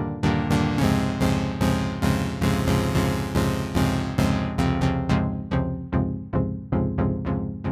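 Elektron Analog Keys analog synthesizer playing a Juno-60-style keys patch: a pattern of short, plucky chords, about two to three a second, each dying away quickly, over a held bass line.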